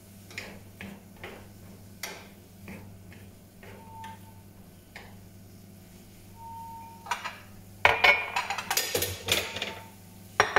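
Wooden spatula stirring vegetables in a non-stick frying pan: scattered light taps and scrapes, then a burst of louder scraping and clatter from about eight seconds in. A steady low hum runs underneath.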